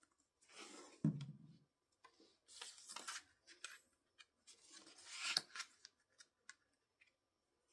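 Cardstock being handled: a few short bursts of paper sliding and rustling, with a soft thump about a second in and small clicks. A glued white cardstock panel is being laid into a folded card and pressed flat by hand.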